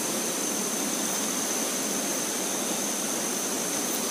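Swollen, fast-flowing river rushing steadily, running high and strong. A thin, steady high-pitched whine sits above it.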